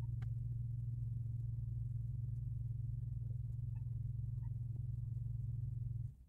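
A steady low hum that cuts off abruptly near the end, with a few faint ticks over it.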